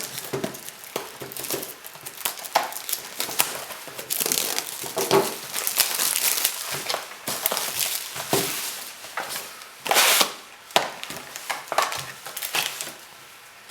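Packaging crinkling and rustling as a box of trading cards is unwrapped and opened, with irregular clicks and scrapes of cardboard; the loudest rustle comes about ten seconds in.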